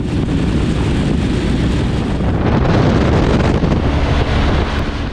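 Loud wind rush buffeting the microphone of a camera mounted on a BMW GS adventure motorcycle riding at speed in heavy rain. The noise fades out near the end.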